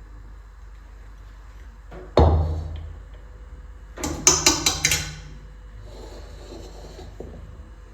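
Metal kitchen utensils knocking: one loud clang that rings on and dies away about two seconds in, then about five quick sharp taps a couple of seconds later.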